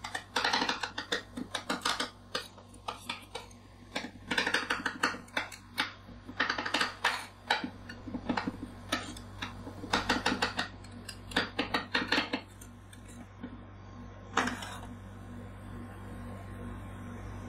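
Two metal spatulas chopping frozen coffee ice-cream mixture on the stainless steel cold plate of a rolled-ice-cream pan, in bursts of rapid metallic clacks. The chopping stops about 12 seconds in, with one last strike about 14 seconds in, leaving a steady low hum.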